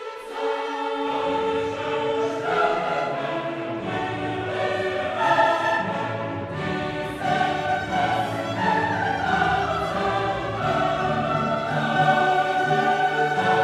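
Choral and orchestral music with sustained sung chords. Low bass parts come in about a second in.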